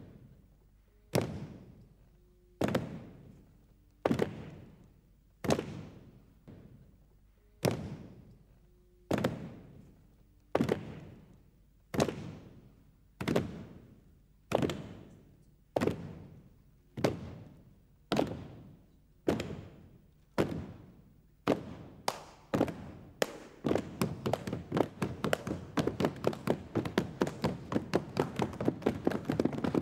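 Heavy knocks struck on a wooden stage floor, ringing out in a large hall, evenly paced at about one every one and a half seconds. After about twenty seconds they speed up into a rapid drumming of many blows a second.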